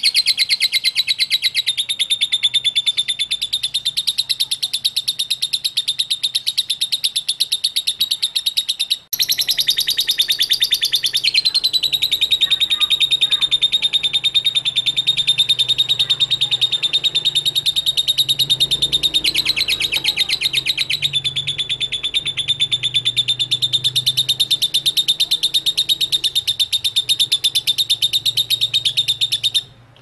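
Fischer's lovebird singing its long, rapid, unbroken chatter (the 'ngekek' song), a fast run of high notes that pauses once briefly about nine seconds in.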